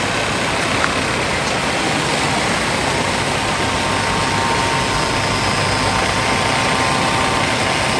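Steady rush of stream water pouring over a low rock-and-bamboo weir.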